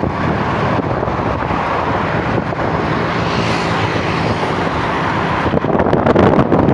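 Steady road and engine noise from a moving vehicle, with wind buffeting the microphone more strongly near the end.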